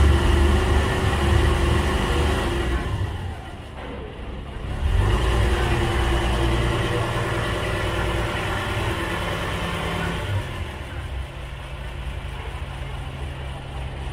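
Cross-river ferry's engine running with a low rumble. It eases off about three seconds in, picks up again a couple of seconds later, and drops to a lower, steadier pitch near the end as the throttle changes.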